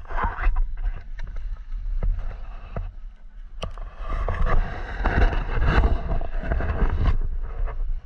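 Skis running over snow: a rough hissing scrape with a low rumble of wind on the microphone and scattered clicks, swelling louder in the second half.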